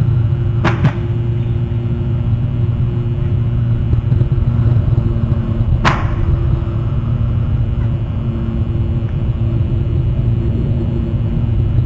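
Steady low rumble with a faint hum under it, broken by two sharp clicks, about a second in and about six seconds in.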